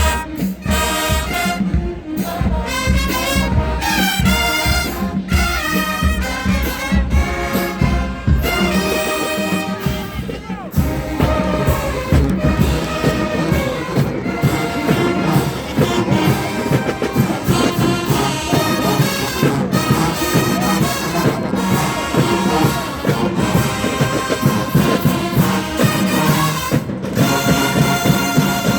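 HBCU marching band playing a brass-heavy halftime number: trumpets, trombones and low brass over pounding drums, with the feel of the music changing about ten seconds in.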